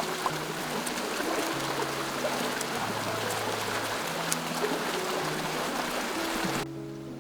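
Flowing stream water rushing steadily over a soft melody of background music; the water sound cuts off suddenly near the end, leaving the music alone.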